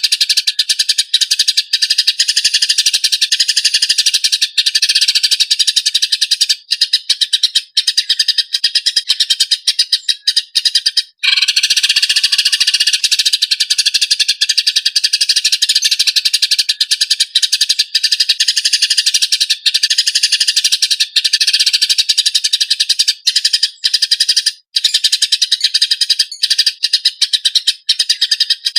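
Eurasian tree sparrows chirping in a fast, dense, harsh stream of calls, the excited chatter of sparrows fighting. The stream breaks off briefly about eleven seconds in, then carries on.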